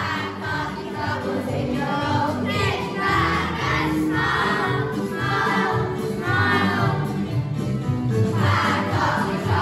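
A choir singing a slow song with instrumental accompaniment, sung phrases swelling and fading over steady held low notes.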